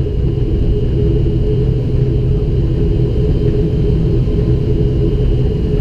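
ATR 72-500's Pratt & Whitney PW127 turboprop engine and propeller droning steadily, heard from inside the passenger cabin, with a faint steady high whine above the low drone.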